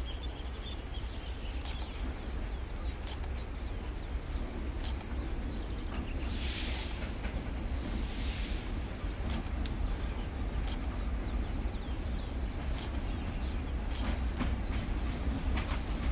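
Steady high-pitched insect chirring over the low rumble of an approaching diesel freight locomotive, which grows slowly louder. Two brief hisses come about six and eight seconds in.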